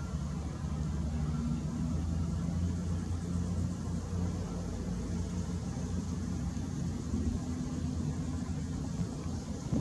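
Hitachi ZW310 wheel loader's diesel engine running steadily under load as it climbs a sand pile with a raised bucket of sand.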